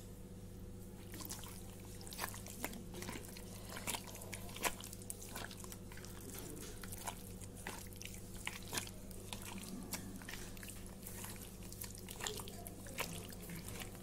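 A hand squishing and kneading raw beef pieces in wet spice paste: irregular wet squelches and clicks starting about a second in, over a steady low hum.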